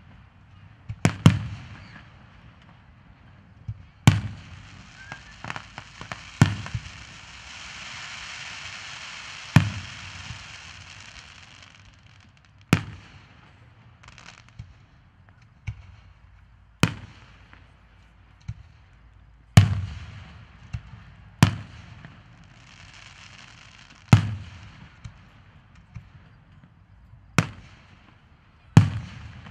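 Aerial fireworks shells bursting in a display: a string of sharp booms, one every second or two, some echoing with a low rumble. A rushing noise builds between the bursts from about a quarter of the way in and again later.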